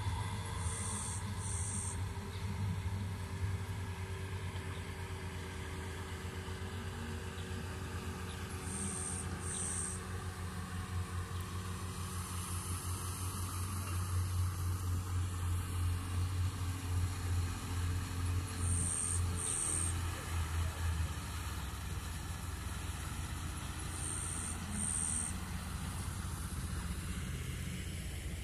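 Outboard motor of a boat on the river, a steady low drone that grows louder and pulses in the middle, then eases off after about 21 seconds. A short, high two-note chirp is heard four times over it.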